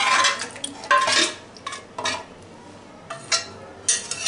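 Metal spoon scraping out and knocking against a metal pressure cooker as thick mutton gravy is emptied into a kadhai: about half a dozen clanks and scrapes.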